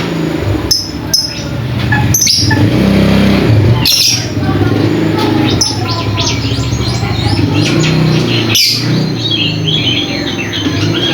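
Lovebird chirping in a rapid run of short, high squeaky notes, with a few sharp knocks in between and a steady low hum underneath.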